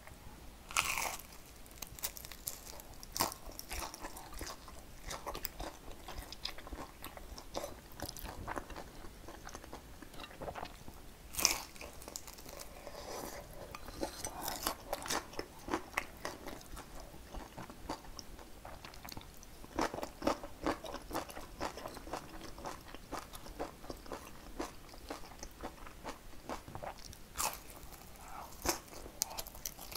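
Close-miked eating sounds: repeated crunching bites and chewing of a pan-fried vegetable pancake (buchimgae), irregular throughout.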